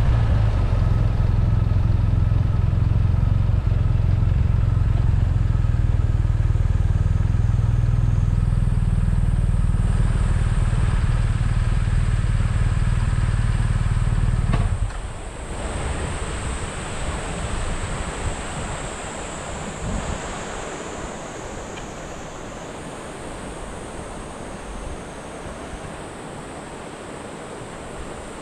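BMW R1250RT's boxer-twin engine running steadily, then shut off abruptly about halfway through, leaving the steady rush of flowing water from a rain-swollen waterfall and stream.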